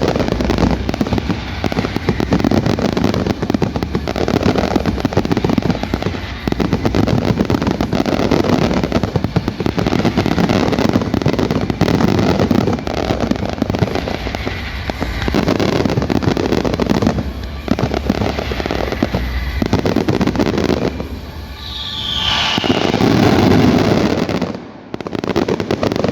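Aerial fireworks going off in a dense, continuous barrage of bangs and crackling. A short rising whistle sounds about three-quarters of the way through, and the barrage briefly drops away near the end before picking up again.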